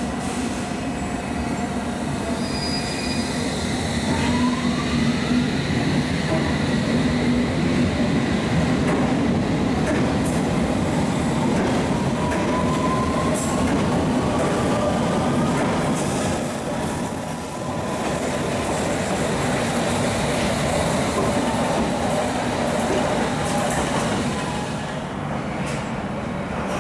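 London Underground S stock train pulling out of the station: the rumble of wheels on rail under a motor whine that rises in pitch as it picks up speed, with a thin high wheel squeal partway through.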